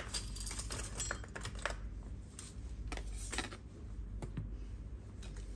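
Irregular light clicks and taps of a cracked smartphone and small repair tools being handled on a silicone bench mat. They come thickly for the first three seconds or so, then thin out, over a low steady room hum.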